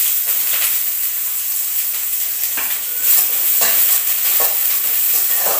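Chopped onion sizzling in hot oil in a steel kadai, freshly added and being stirred with a spatula, the strokes standing out now and then over the steady sizzle.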